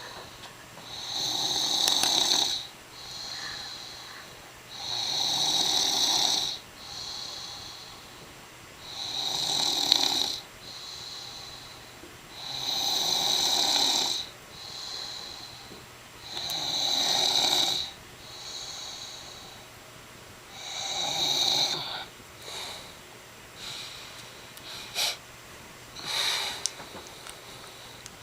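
A person snoring in a steady rhythm: a strong snore about every four seconds, six in a row, each followed by a softer breath. Near the end the snores give way to a few shorter, sharper sounds.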